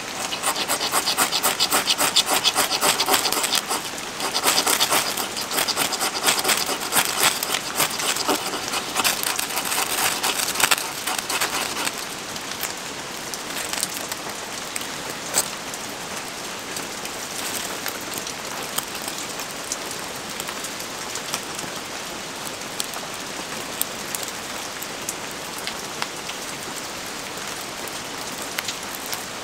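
Ferrocerium rod struck again and again to light damp wood shavings, a fast run of rasping scrapes for about the first twelve seconds. After that, steady rain on surfaces, with a few light clicks.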